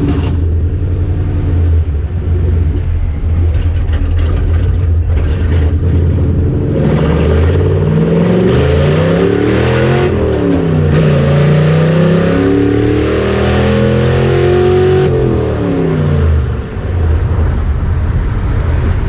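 Car engine running steadily, then accelerating hard from about seven seconds in: its pitch climbs, drops back about ten seconds in, climbs again, and falls away near sixteen seconds.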